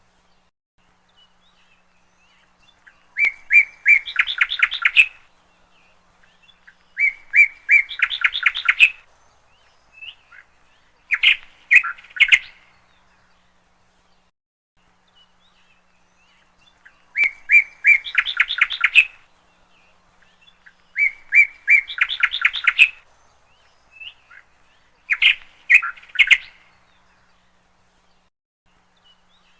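Bird-like chirping in short rapid phrases, three phrases a few seconds apart, then the same three again after a pause.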